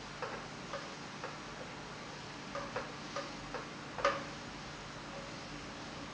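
A wooden spatula tapping and scraping against a frying pan while curry is stirred: a scatter of light, irregular taps, the loudest about four seconds in, over a steady low hiss.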